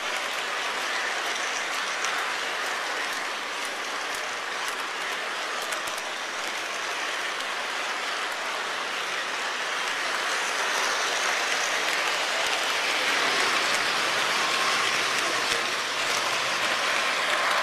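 O-gauge model trains running on three-rail track: a steady rolling rush of wheels and motors with faint scattered clicks, getting louder about ten seconds in as a train draws nearer.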